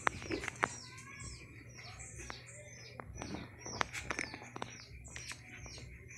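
Small birds chirping over and over, short high falling chirps about three a second, with scattered sharp clicks and taps close by.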